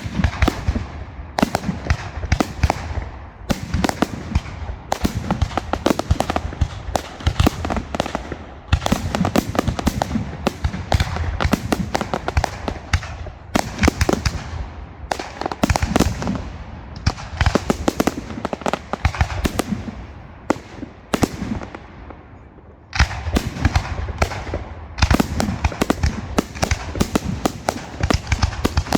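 Fireworks display: rapid salvos of aerial shell bursts with crackling, bang after bang. It thins out for a moment about three-quarters of the way through, then a dense barrage starts suddenly.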